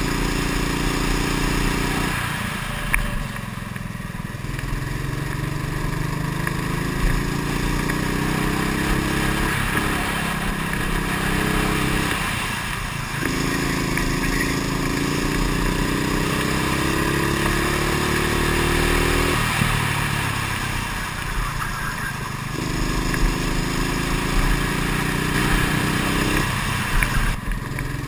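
Kart engine heard from on board the kart, its pitch climbing steadily through each straight and falling away for the corners, about four times.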